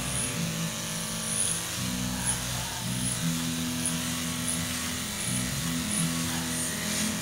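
Electric hair clippers buzzing steadily as they cut a child's hair, the hum's pitch shifting now and then as the blades meet the hair.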